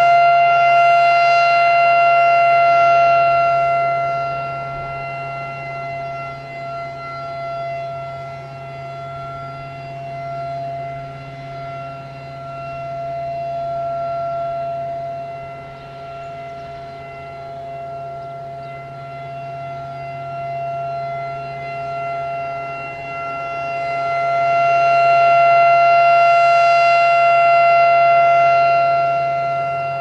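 Federal Signal Thunderbolt 1000B outdoor warning siren sounding a steady alert tone as its horn rotates. The tone is loudest about the first three seconds and again near the end, and fainter in between as the horn turns away. It runs without its blower, which the recordist takes for a locked-up blower.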